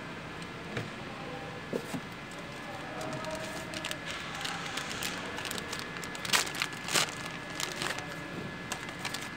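Clear plastic parts bag crinkling and crackling as it is handled, in irregular sharp crackles that grow busier partway through, the two loudest a little past the middle.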